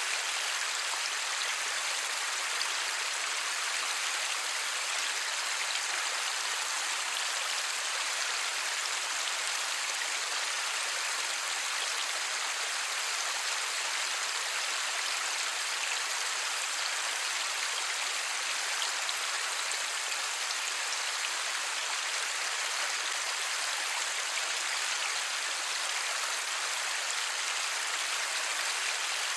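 Steady light rain, an even hiss of falling drops without thunder.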